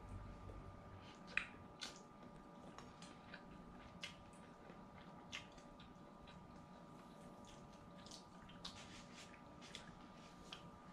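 Quiet eating sounds: faint, irregular small clicks and smacks of chewing and handling food, over a faint steady hum.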